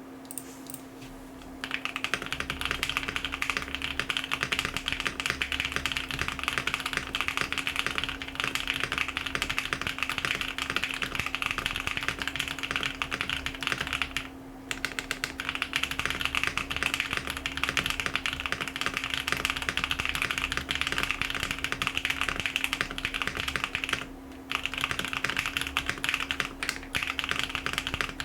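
Custom Tofu60 mechanical keyboard with pre-lubed Java switches, a polycarbonate plate, a burger mount and a brass sheet in the bottom case for a poppier, higher-pitched sound, being typed on fast and continuously as a dense clatter of keystrokes. Typing starts a little under two seconds in, with two short breaks: one near the middle and one about five-sixths of the way through.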